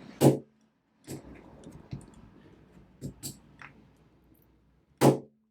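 A four-wheel combination padlock being knocked with a rubber-tipped crescent wrench: two sharp knocks about five seconds apart, with lighter taps and rattling of the lock in between. This is a knocking bypass, jarring the lock's internal locking lever so the shackle can be pulled open without the combination.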